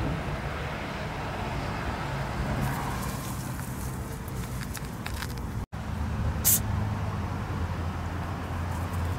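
Steady low outdoor rumble with light crackling, a brief dropout just before six seconds in, and one sharp click about six and a half seconds in.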